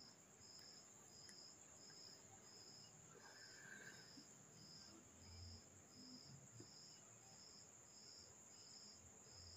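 Near silence with a faint, high insect chirp repeating about twice a second over a steady high hiss.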